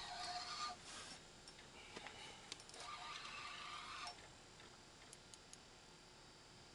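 Spinning reel on a bent jigging rod, working against a hooked lake trout. It gives two stretches of clicking and whirring in the first four seconds, then a few faint ticks.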